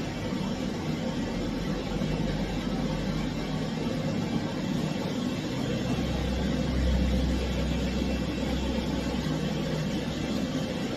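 Steady hum of a running motor, with a deeper rumble swelling up between about six and ten seconds in.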